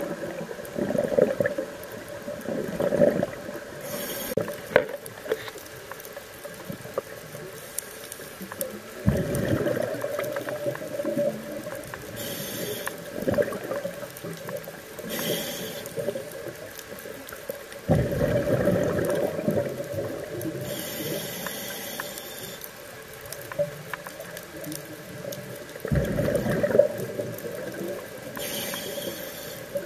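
Scuba diver breathing through a regulator underwater: a bubbling rush of exhaled air about every eight or nine seconds, with short hisses from the regulator on the inhale between them.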